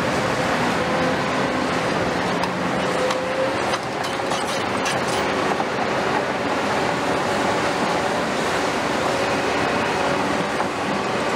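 Large hydraulic demolition excavators working: diesel engines running steadily under load with hydraulics, and a faint steady whine. A few sharp clanks or cracks come between about two and five seconds in.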